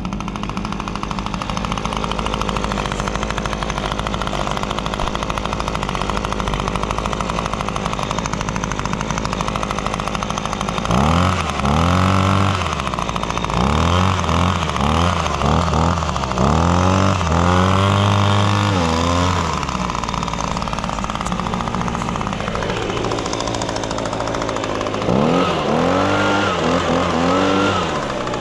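Echo PB250 handheld leaf blower's 25.4cc two-stroke engine running after a start. It idles steadily at first, then from about 11 seconds in it is revved up and down several times, drops back toward idle, and is revved again near the end.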